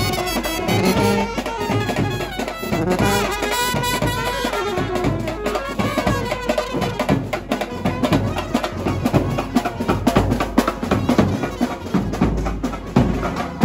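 Indian street brass band music: a saxophone plays a melody up close over brass and drums, and from about halfway the snare and bass drums take over with a dense, driving beat.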